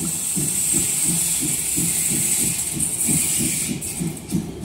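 Steam locomotive 35 1097-1, a DR class 35.10, chuffing as it approaches at speed, with a rhythmic beat of about five strokes a second over a steady steam hiss.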